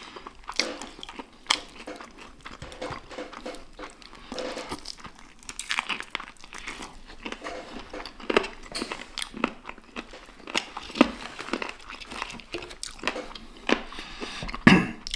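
Crispy fried chicken breading being pulled apart, bitten and chewed close up: irregular crunches and crackles, with a louder crunch near the end.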